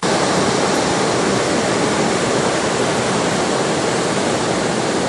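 Ocean surf: a steady rush of breaking waves and whitewater in the shallows.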